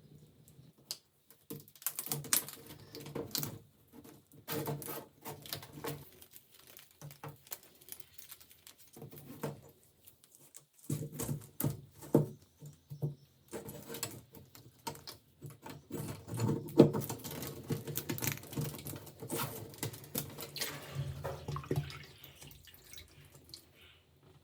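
Irregular clicks, taps and scraping from hand work on small metal gun parts, in bursts with short pauses.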